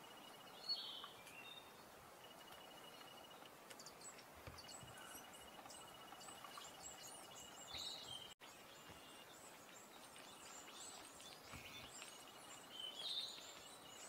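Faint woodland birdsong: small birds giving short chirps about a second in, near the middle and near the end, and thin high calls through the second half. Under them, a faint rapid trill at one pitch starts and stops in runs of a second or two.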